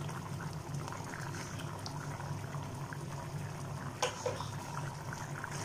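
Thick coconut-milk fish-head curry bubbling and popping at a rolling boil in an open pan on a high flame, the gravy reducing down. A steady low hum runs underneath, and a single short knock comes about four seconds in.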